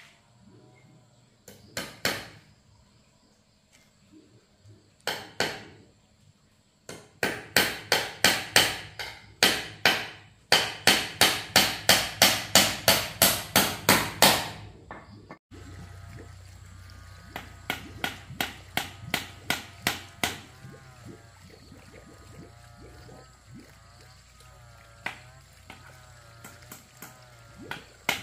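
Hammer driving nails into small wooden railing slats: a few single blows, then fast runs of sharp strikes at about four a second, with lighter taps later and another quick run near the end.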